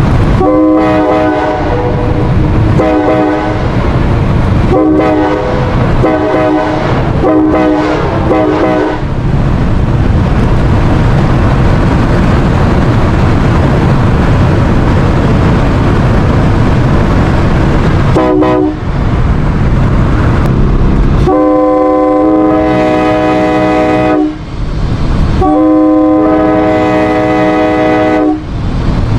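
A Nathan AirChime K5LA five-chime train horn (an '80s tagless one) blowing its chord in a rapid series of short blasts. It falls silent for several seconds under a loud steady rumble, then gives two short blasts and two long blasts of about three seconds each.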